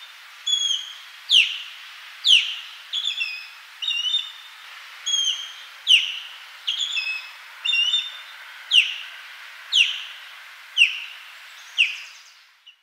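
Osprey calling: a series of sharp whistled notes about once a second. Short level chirps, some in quick pairs or threes, alternate with louder calls that slide steeply down in pitch, over a steady background hiss.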